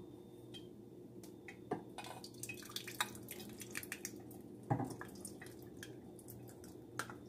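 Faint dripping and trickling of oat-soaking water falling from a metal colander into a stainless steel sink, scattered drops with a few louder light knocks of the colander, the loudest nearly five seconds in.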